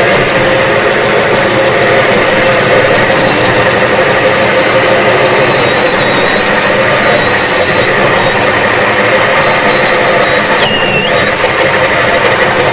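Cordless drill turning a Cavity Master hole saw as it cuts into a chipboard floor: a steady motor whine over the rasp of the saw teeth in the board. Near the end the whine briefly drops in pitch as the drill slows under load.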